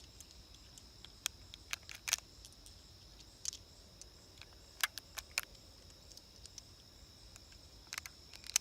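Small, irregular metallic clicks and clinks of pistol cartridges being handled, about ten in all, bunched around two seconds in, five seconds in and near the end. Insects buzz steadily behind them.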